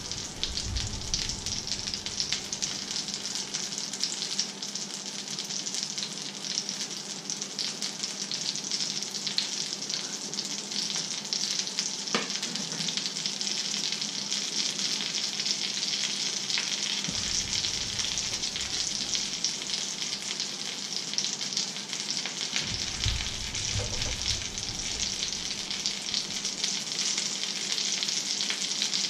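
Breaded fish fingers frying in oil in a pan: a steady sizzling crackle.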